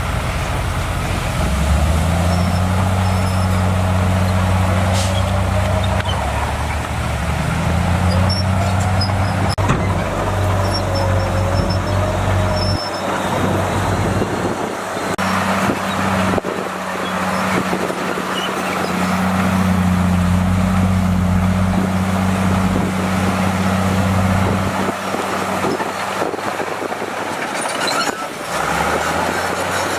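Heavy diesel engine of a bulldozer running under load, its low steady note easing off a couple of times and picking up again, with a wavering whine near the middle.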